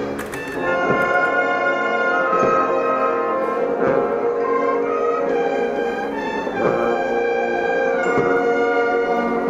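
Brass band playing slow music in long held chords that change about once a second.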